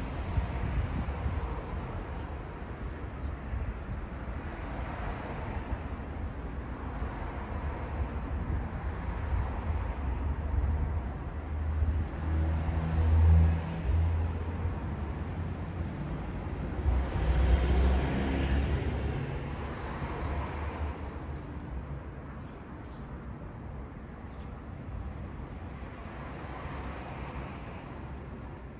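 Road traffic: vehicles passing with a low rumble, swelling twice near the middle and then fading.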